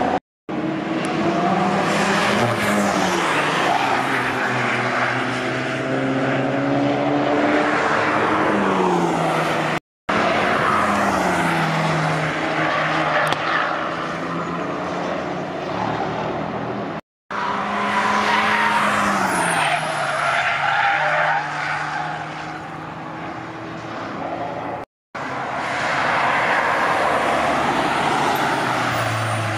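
Cars driving fast past a corner one after another, each engine's pitch rising and then falling away as it goes by, over tyre and road noise. The sound cuts out for a moment four times where the clips join.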